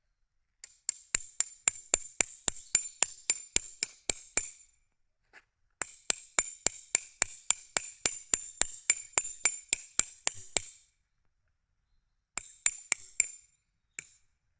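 Quick, evenly spaced sharp clicks with a light ringing tone, about four a second, in three runs with short gaps between them, the middle run the longest.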